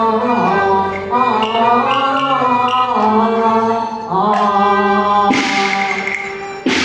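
Cantonese opera singing: a long drawn-out sung note that bends up and down in pitch over the accompanying band. About five seconds in, a loud percussion crash comes in, and another follows near the end.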